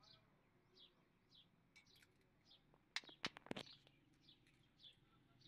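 A small bird chirps steadily, short falling chirps about twice a second. A little after three seconds in come a few sharp metallic clicks, the loudest sounds here, from hand tools on the engine's rocker arms.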